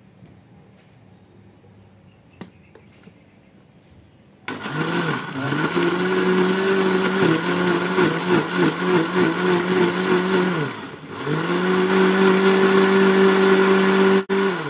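Electric blender motor switched on about four and a half seconds in, whirring up to speed and running with a wavering pitch as the blades chop pandan leaves in water. About eleven seconds in it slows briefly and spins back up, then stops just before the end. A light click comes in the quiet before it starts.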